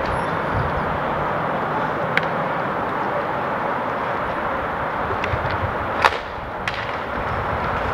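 Roller hockey play: several sharp clacks of sticks striking the puck over a steady rink noise, the loudest about six seconds in.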